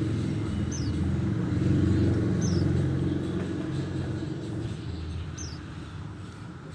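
A passing vehicle's low rumble swells and fades away, while a bird gives three short, high, falling chirps a couple of seconds apart.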